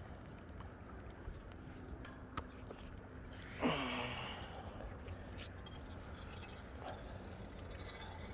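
Steady low rumble of wind on the microphone, with a few faint clicks and one short, louder breathy sound about three and a half seconds in.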